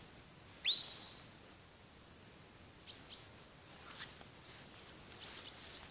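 Sheepdog handler's whistle commands. One loud note sweeps up and holds for about half a second near the start, then pairs of short high notes at the same pitch come near the middle and again near the end.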